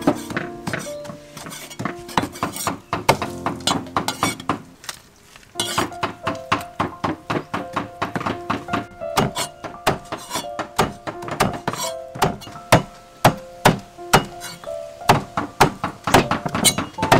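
A cleaver chopping boiled cow intestine and tripe on a wooden stump chopping block: rapid, even thunks at about four a second, pausing briefly about five seconds in. Background music plays throughout.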